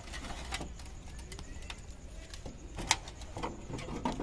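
Clicks and knocks of a battery being shifted and pushed into a sheet-metal battery box, with one sharper knock almost three seconds in.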